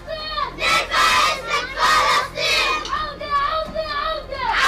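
A group of children chanting Arabic slogans in rhythmic unison, a boy calling out through cupped hands and the group shouting back; near the end the chant is "Return! Return! Return!".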